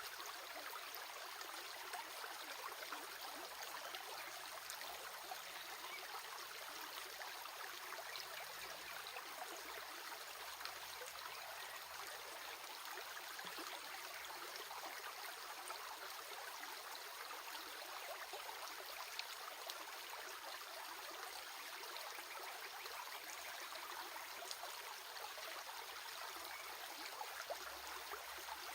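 Running water, a steady rushing splash with many fine droplet ticks, unchanging throughout.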